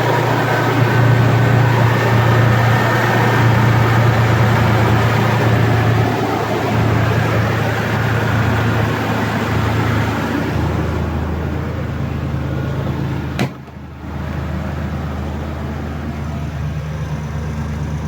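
1999 Ford F-150 engine running steadily with the rebuilt AC compressor clutch and belt, with no belt squeal: it runs smoothly. About ten seconds in, the hiss drops and the low hum settles lower. A sharp click comes about three seconds later.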